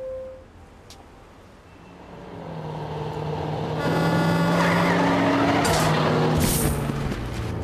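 A short beep at the start, then a heavy armored truck's engine running and growing louder as it approaches, with a sharp hiss near the end.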